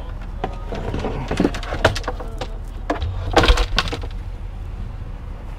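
Painted signs knocking and scraping against each other and the truck's interior as they are pushed into the back seat, with a cluster of knocks about three and a half seconds in, over a steady low hum.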